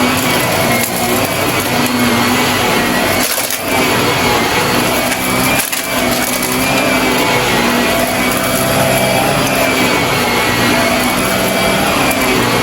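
Shark vacuum cleaner running with a steady motor whine, crackling and crunching as it sucks up grit and debris. The sound dips briefly twice.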